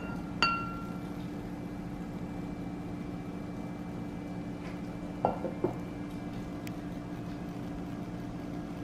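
Ceramic lid of an earthenware pot clinking as it is lifted off, one short ringing chink about half a second in. Two duller knocks follow about five seconds in, over a steady low hum.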